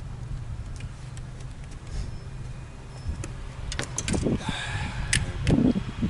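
A boat's motor humming steadily and low, with scattered clicks and knocks on the deck. About four seconds in there is a cluster of clicks and a short rush of noise.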